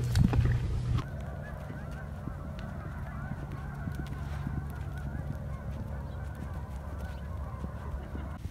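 A low rumble for about the first second, then a flock of geese honking continuously, many calls overlapping.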